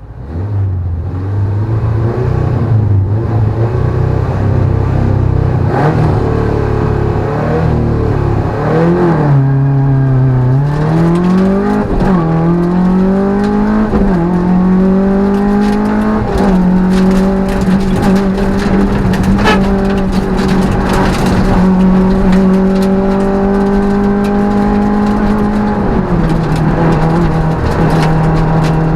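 Peugeot 205 rally car's engine heard from inside the cabin: steady low revs for about the first nine seconds, then the engine revs up through several quick gear changes, each a rising pitch cut short by a drop, before holding a steady high note. The revs step down once near the end, with clicks and rattles throughout.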